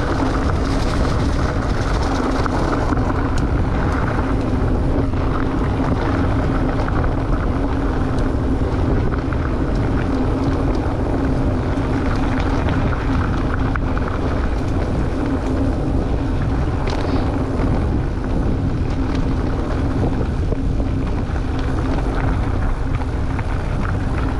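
Riding noise of an e-mountain bike on a trail: a steady rush of wind and rolling noise with a constant low hum, unbroken throughout.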